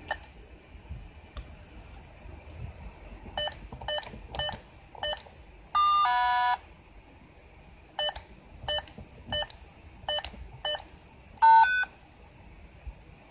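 Key-press beeps from a code panel's buzzer: four short beeps as a code is typed, then a longer beep that steps between two pitches. Five more short beeps follow, then one longer, higher beep as the panel signals that the alarm is activated.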